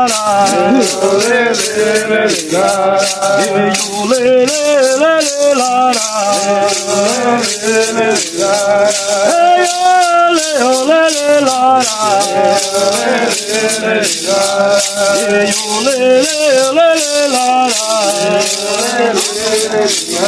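Voices singing an indigenous ritual chant to handheld maracas shaken in a steady beat.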